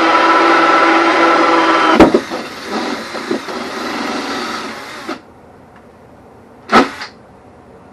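A power drill turning a hole saw through hardwood, running steadily under load. About two seconds in there is a sharp knock, and the drill winds down with uneven rattling that stops about five seconds in. A brief loud burst of noise follows near the end.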